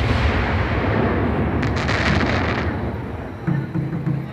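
Aerial firework shell's boom rolling away as a long rumble, with a burst of crackling about one and a half seconds in, then fading near the end.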